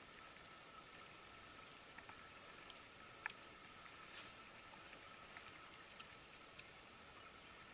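Near silence: a faint steady background hiss with a thin high whine, and a few soft ticks, one sharper tick about three seconds in.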